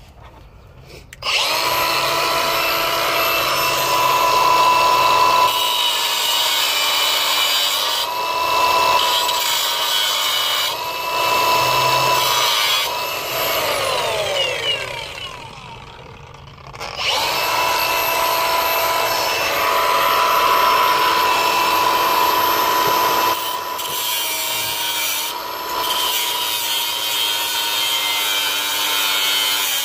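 Small high-speed power tool cutting into the seatbelt retractor's casing, a steady whine that dips in pitch as it bites. About 13 seconds in it spins down and goes quiet briefly, then starts again and cuts on. It is cutting out a square of the casing to reach the belt's locking mechanism.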